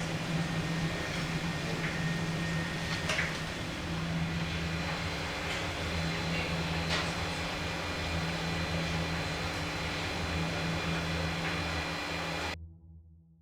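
A steady low mechanical hum with a few faint light clicks, cutting off abruptly near the end.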